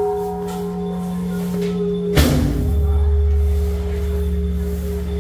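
Music of long held chords; about two seconds in a sudden loud low hit starts a new, deeper chord.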